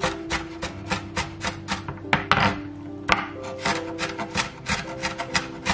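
Chef's knife rapidly chopping onion on a wooden cutting board, sharp knocks about four to five a second, with a short scrape of the blade over the board about halfway through.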